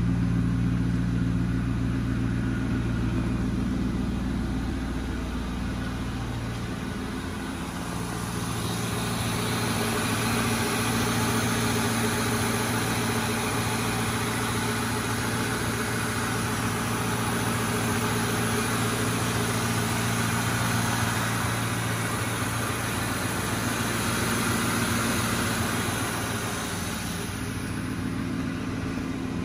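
2003 Ford Mustang GT's 4.6-litre V8 idling steadily after a cold start. It is heard first from behind at the exhausts, then over the open engine bay. From about eight seconds in, more of the engine's mechanical whir comes through, and it fades again near the end.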